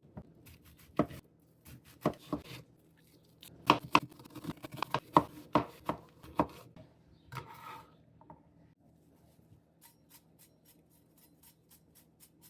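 Knife chopping on a cutting board: uneven, fairly loud strikes for the first seven seconds or so, then light, even cuts at about three a second from about ten seconds in.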